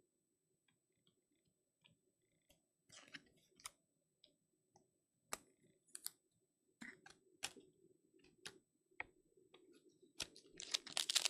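Scattered light clicks and taps of trading cards being handled. Near the end comes a run of crinkling as a foil card-pack wrapper is torn open.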